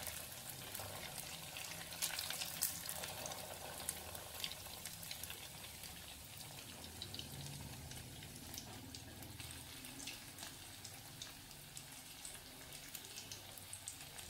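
Bread rolls deep-frying in hot oil over a low flame: a steady sizzle with fine crackling, a few louder crackles about two seconds in, easing slightly in level.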